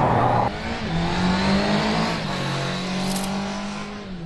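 Honda CB650F inline-four motorcycle engine with a Termignoni exhaust, revved and held at high revs from about half a second in, the revs falling away near the end.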